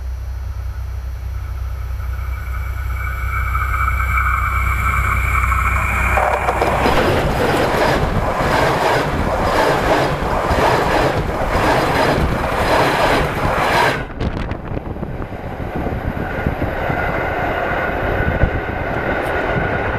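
A diesel train approaches along the track and then rolls directly over a microphone lying between the rails. As it nears there is a rising whine. Then come several seconds of loud rumble and clatter with the regular clack of the wheels over the camera. This cuts off abruptly about 14 seconds in, followed by a quieter, steadier rumble.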